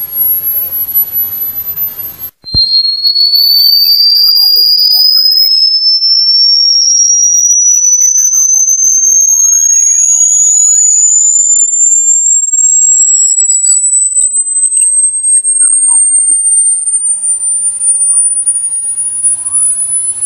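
Electronic rat-repellent tone: a loud, pure, high-pitched whistle-like tone that sweeps slowly upward in pitch. About two and a half seconds in it breaks off briefly and restarts from a lower pitch, then climbs steadily again.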